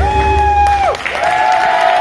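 A woman's amplified singing voice holds a long note, then drops away about a second in as the bass of the accompanying music stops. The audience then applauds and cheers while further long held voice notes carry on over the clapping.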